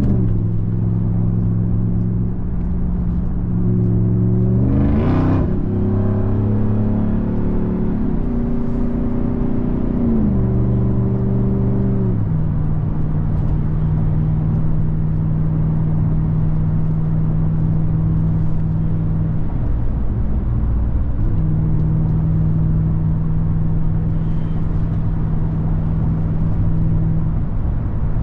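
2021 Ram 1500 TRX's supercharged 6.2-litre Hemi V8 running while the truck is driven. Its pitch rises about four seconds in, falls back around ten to twelve seconds in, then holds steady at a lower pitch.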